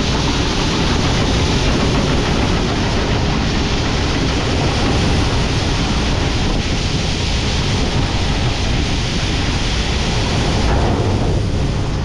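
Steady rushing of strong wind on the microphone, over the low rumble of farm machinery running.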